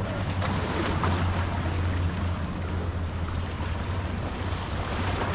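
Seaside wind and surf noise over a steady low rumble.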